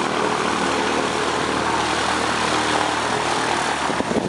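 Single-engine piston engine and propeller of a four-seater Piper light aircraft, running steadily at a constant pitch.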